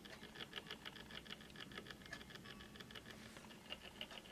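Flip clock's small motor and gear train running in a JVC Videosphere 3241: a faint, rapid, even ticking with a low hum beneath, the sign that the repaired clock is powered and turning.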